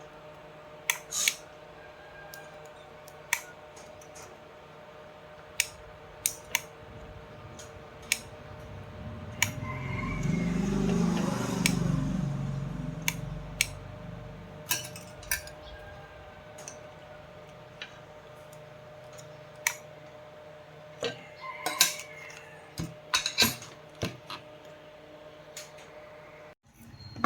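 Scattered sharp metallic clicks and taps from small tools and parts being handled, over a steady low hum. A louder rumbling swell rises and fades about ten to twelve seconds in.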